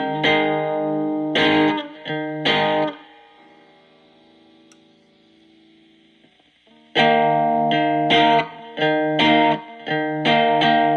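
Electric guitar played through a breadboarded Distortion+ (dist+) circuit with diode clipping: distorted chords struck in short rhythmic hits. They stop for a few seconds partway through, leaving only a faint lingering note, then start again.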